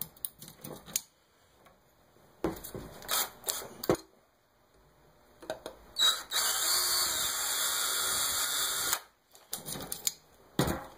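Handheld power drill running steadily for about three seconds as a small twist bit bores out the end of a metal retract strut clamped in a vise, enlarging the axle hole toward 3 mm in steps. Scattered clicks and knocks before and after.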